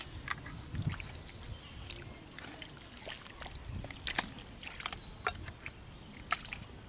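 Hands groping and sloshing in shallow muddy water: irregular small splashes and wet squelching clicks, with a few soft low thumps.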